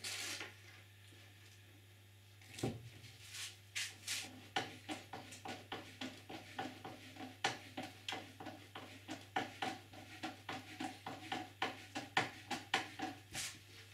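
Hand screwdriver turning a screw into a kayak bulkhead through the hull, a short creaking click with each twist, about three a second. There is one louder knock before the turning starts.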